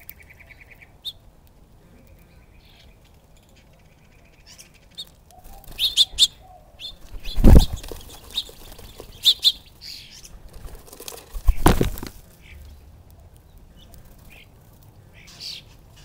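Dove wings flapping hard as doves fly up to and off a seed feeder, in two loud bursts, one about halfway through and one about three-quarters through. Small birds chirp in short calls around them, and a faint fast trill sounds near the start.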